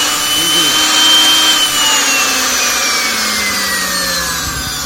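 Waring commercial mixer-grinder motor running at speed, a loud high whine over a rushing noise. About a second and a half in, the whine starts to slide slowly and steadily down in pitch as the motor slows.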